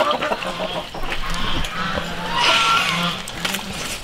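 A chicken clucking, with a louder, rougher call about two and a half seconds in, over the wet clicks and smacks of someone chewing.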